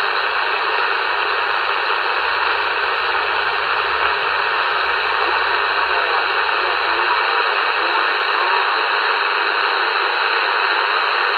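President Jackson CB radio receiving, its speaker giving a steady, even hiss of static with no voice in it.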